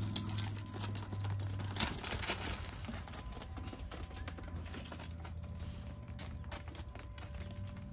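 Small goats' hooves tapping and clicking on concrete paver stones as the goats trot about. There is a sharper knock just after the start and another about two seconds in.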